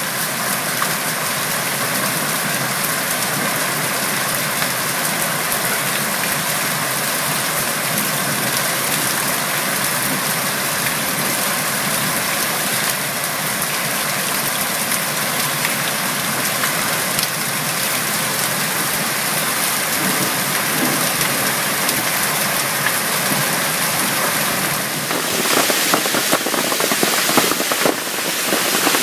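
Hailstorm with heavy rain pelting the street, roofs and trees: a dense, steady hiss of falling hail and rain. About 25 seconds in, it turns louder, with many sharp clicks and cracks of hailstones striking hard surfaces.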